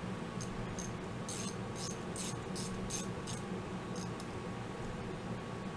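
A ratchet wrench clicking in short, irregular metallic ticks as it backs the flywheel nut off a nitro RC engine.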